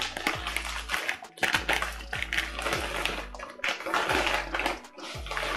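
Plastic packaging bag crinkling and rustling in irregular bursts as it is handled, over background music with a deep bass that drops in pitch on each note.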